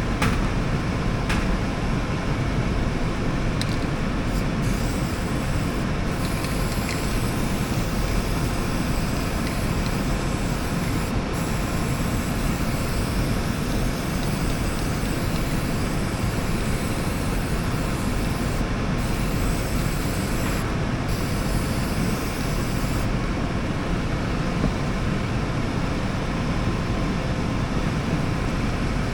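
Running air-conditioning system giving a steady whooshing hum, its fan and motor running without a break.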